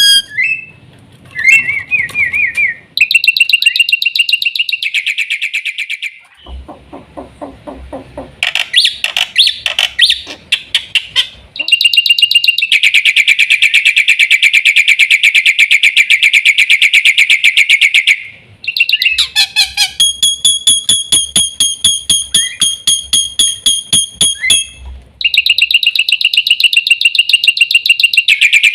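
Black-winged myna (jalak putih) singing loudly. Its song is long runs of very rapid repeated high notes, like a fast rattling chatter, broken by short pauses. A lower-pitched series of notes comes about seven seconds in.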